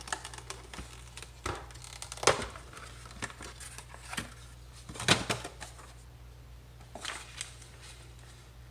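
Clear plastic blister packaging crinkling and clicking as it is handled and a rubber recoil pad is taken out of it: irregular sharp crackles, the loudest about two and five seconds in.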